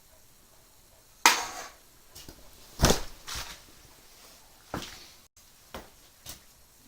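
A series of about six separate knocks and clatters of objects being handled and set down, the loudest two in the first half.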